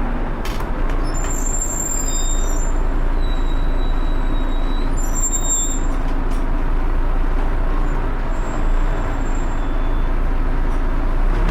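Volvo B7TL double-decker bus running with its engine cooling fan making a loud, steady vacuum-cleaner-like rush over the engine's low rumble. Brief high squeaks come through twice.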